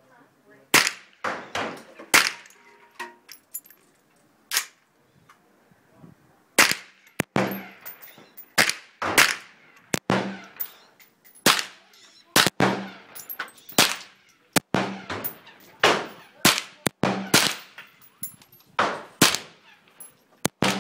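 .22 rifle firing a long string of sharp shots, roughly one to two a second, with a pause of about two seconds in the first third.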